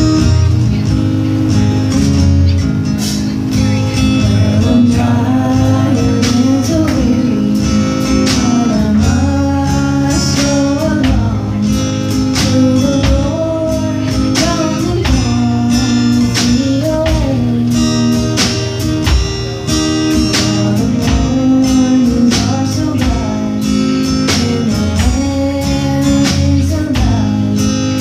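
Live praise band playing a song: acoustic guitar strumming and a drum kit keeping a steady beat, with voices singing the melody.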